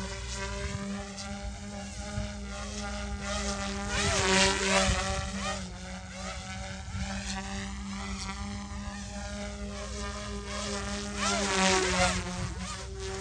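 OMP M2 mini RC helicopter in flight: a buzzing motor-and-rotor whine that rises and falls in pitch as it manoeuvres, swelling louder about four seconds in and again near the end.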